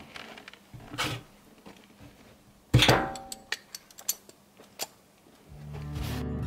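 A hand tool knocking and scraping on the steel wall of a shipping container. There is a brief scrape, then one sharp strike that rings for a moment, then a few lighter taps. Guitar music comes in near the end.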